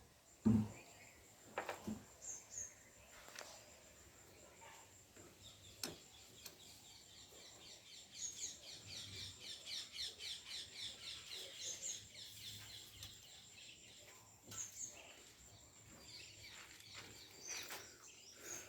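Birds chirping in the background, with a fast trill from about eight to thirteen seconds in. A thump about half a second in and a few scattered clicks come from handling parts while the battery earth wire is connected.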